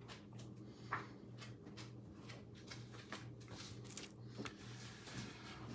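Faint scattered clicks and light handling noises, one slightly stronger tap about a second in, over a steady low electrical hum.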